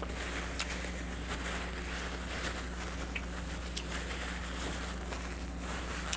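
Paper towel rustling and crumpling as hands are wiped clean of seafood-boil sauce, with a few faint clicks, over a steady low electrical hum.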